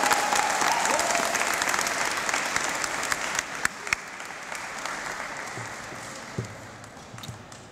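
A group of people applauding, the clapping dying away gradually.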